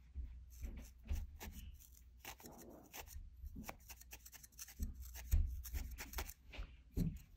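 A barbed felting needle stabbing repeatedly into wool, tacking a wisp of white wool onto a felted wool body: a quick, uneven run of short pokes with a low rumble of handling underneath.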